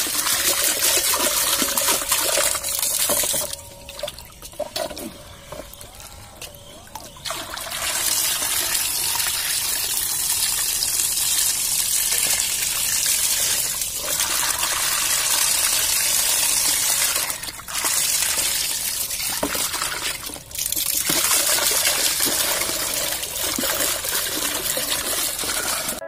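Water jetting and splashing in a plastic tub, thrown by a homemade submersible pump driven by a 12 V DC 775 motor. The flow dies down for a few seconds about four seconds in and dips briefly twice later.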